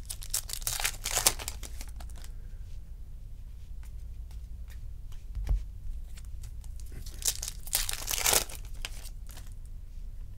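Foil wrapper of a baseball card pack being torn open and crinkled, in two bouts of crackling, the second near the end. A dull thump sounds about halfway through.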